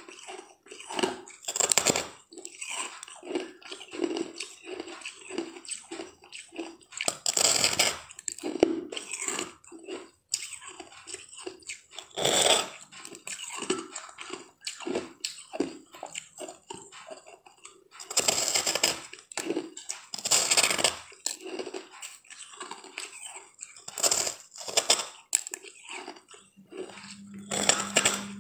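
Crunchy bites into a large, airy blue-green disc of crisp food, about seven loud crackling crunches spread through, with close-up chewing and small crackles in between.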